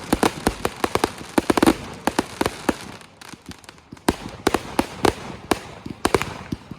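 Consumer firework cake firing: a rapid, irregular series of sharp bangs and cracks, thinning out about three seconds in and picking up again about a second later.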